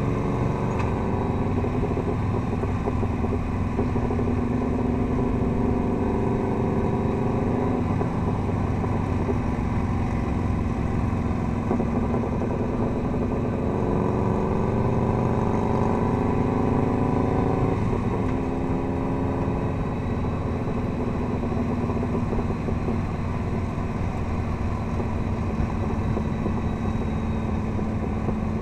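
Touring motorcycle's engine running under way, its pitch climbing as it pulls and dropping sharply about eight and eighteen seconds in as it shifts up. Wind and road noise run underneath.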